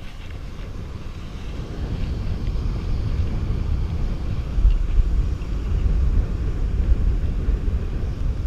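Wind buffeting the microphone, a low fluttering rumble that grows louder over the first few seconds and then holds.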